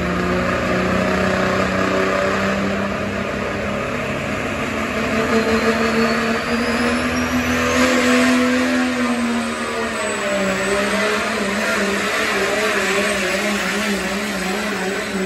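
Pickup truck engine revving hard while pulling a weight-transfer sled. A high whine rises in pitch from about five to eight seconds in, and the engine note dips and wavers after about ten seconds.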